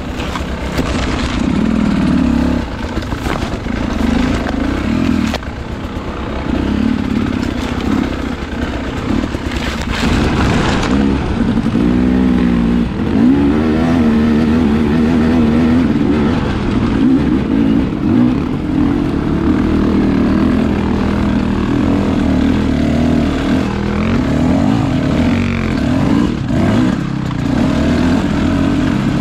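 Two-stroke enduro dirt bike engine running under way on a trail, its revs rising and falling with the throttle, with one clear climb in revs about twelve seconds in.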